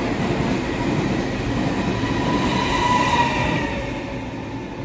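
Taiwan Railways PP Tze-Chiang push-pull express, a train of E1000 coaches, passing through a station at high speed: dense rolling noise of the cars on the rails, with a faint wheel whine in the middle, easing off near the end.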